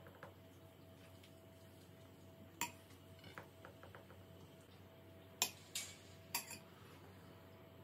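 Metal spoon clinking against a non-stick pan and a glass mixing bowl as batter is spooned out. There is one sharp clink about two and a half seconds in, a few light ticks after it, and three more clinks in quick succession near the end, over a faint steady hum.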